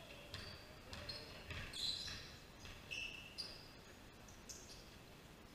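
Faint basketball game sounds: sneakers squeaking on a hardwood gym floor in several short chirps, with a few dull thumps of a basketball bouncing in the first two seconds.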